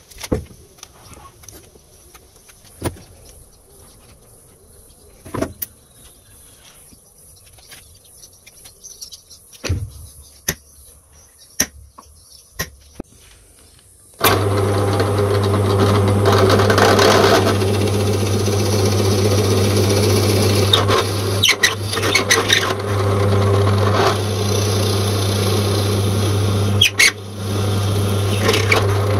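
Scattered light knocks and taps, then about halfway in a power drill starts and a Forstner bit bores into a hardwood beam: a steady motor hum under the rough chipping noise of the cut, easing briefly a few times as the bit is lifted.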